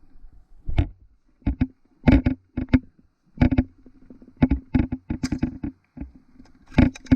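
Airsoft guns firing single shots in irregular groups of one to three, each a sharp crack.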